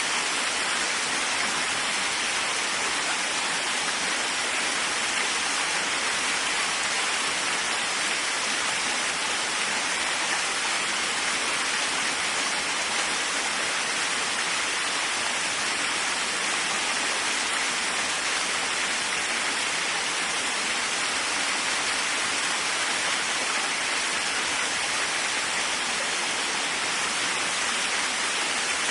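Waterfall: a steady, unchanging rush of falling water, mostly bright hiss with little deep rumble.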